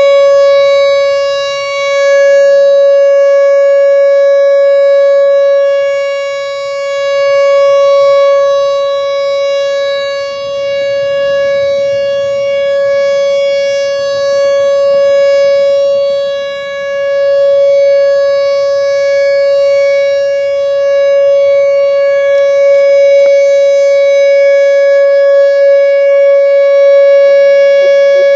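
Whelen Vortex outdoor warning siren sounding the steady Alert tone: one unwavering pitch that swells and fades in loudness every few seconds.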